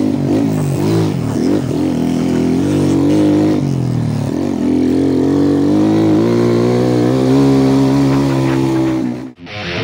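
Dirt bike engine revving up and down as it is ridden, its pitch rising and falling with the throttle; the sound cuts off suddenly just before the end.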